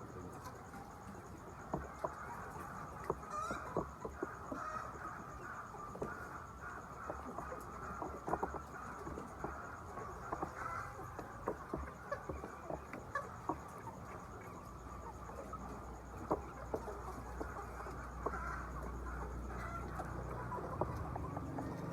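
Laying hens clucking in a poultry shed, with many short sharp ticks scattered through. A low steady hum comes in about two-thirds of the way through.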